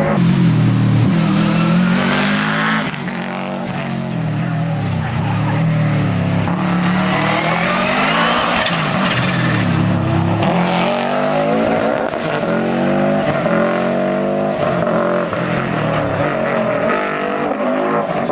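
Historic rally car engine revving hard at full throttle, its pitch climbing and dropping repeatedly as it changes gear and lifts off for corners.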